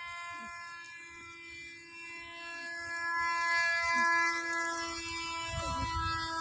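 Homemade radio-controlled Su-27 model plane's motor giving a steady whine as it flies overhead. The whine grows louder around the middle.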